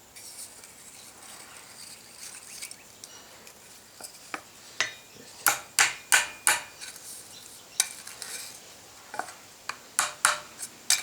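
Sharp metallic clinks and light knocks, irregular and scattered through the second half, as a forged steel handle is tapped and fitted back onto a wire brush.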